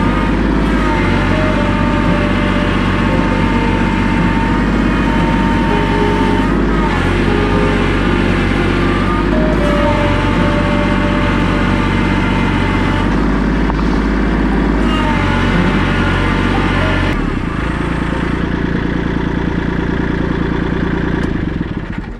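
Kubota compact tractor's diesel engine running under way as the tractor is driven, its note dropping a little about seventeen seconds in.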